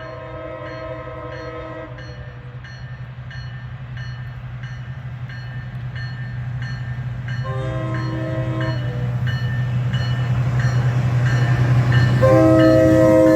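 Loram rail grinder 309's multi-note air horn sounding as it approaches: a blast ending about two seconds in, a short blast a little past the middle, and a long, loud blast starting near the end. Under it the drone of the grinder's engines grows steadily louder as it nears.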